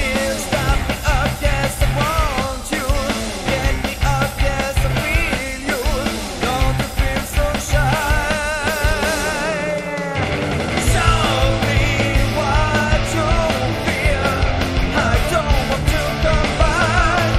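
Recorded rock song with singing over a steady drum beat. About ten seconds in it drops out for a moment and comes back with a fuller, heavier low end.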